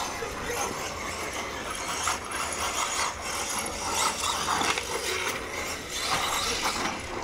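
1/5-scale brushless electric RC buggy (Red Cat Rampage XBE on a 6S battery) driving on a dirt track, its drivetrain giving a mechanical gear noise that swells several times as it accelerates.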